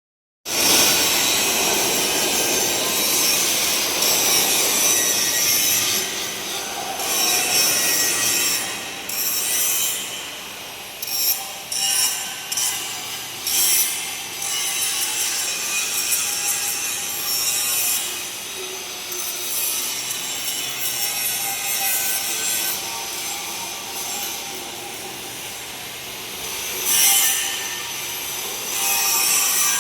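Angle grinder grinding a metal hand railing: a continuous harsh hiss that swells and eases as the disc is pressed on and eased off, with several sharp surges in the middle and one near the end.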